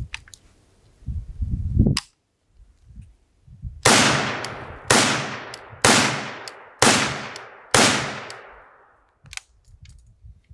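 Five rifle shots from a Vepr AK-pattern rifle in 7.62×39, fired semi-auto about one second apart, each followed by a fading echo, after a single knock of handling about two seconds in. The rifle cycles every round with dirt poured onto it, fed and fired without a stoppage.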